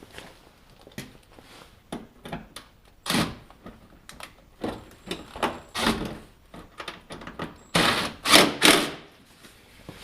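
Clicks and knocks of plastic ATV body panels and screws being handled and fitted during reassembly, with louder knocks about three and six seconds in and three more close together near the end.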